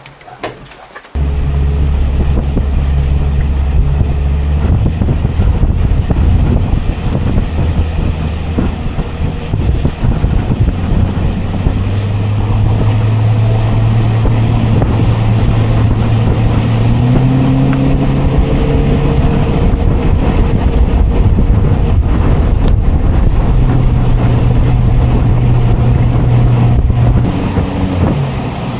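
Honda 90 hp outboard motor running with the boat under way, starting abruptly about a second in. The engine note steps up in pitch a couple of times and drops near the end. Wind buffets the microphone.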